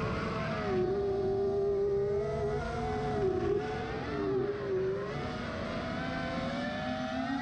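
Brushless motors of a 6S FPV racing quadcopter (Lumenier ZIP 2407 1700Kv, DAL Cyclone 5040 props) whining in flight, the pitch rising and dipping as the throttle changes, with wind rumble underneath from the onboard camera's microphone.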